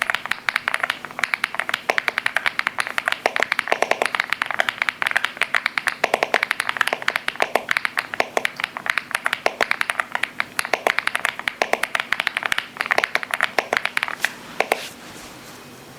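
Aula F75 75% mechanical keyboard being typed on fast: rapid, irregular keystroke clacks from its linear switches, which the reviewer calls soft and deep. The typing stops about a second before the end.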